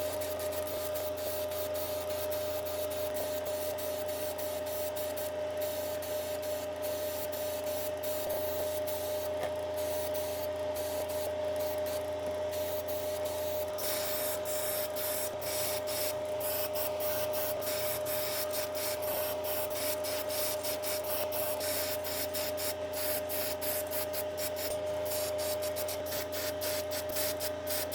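Steady spraying hiss from a pressurised tool, over a constant machine hum, with small clicks and crackles throughout.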